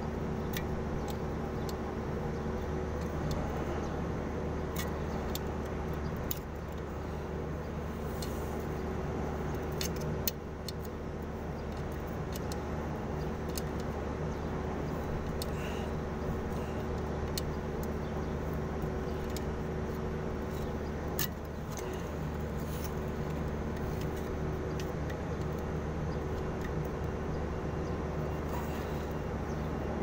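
A washing-machine wash motor running with a steady hum, with scattered light clicks and a few brief dips in level as it is handled. The owner suspects the motor is unbalanced.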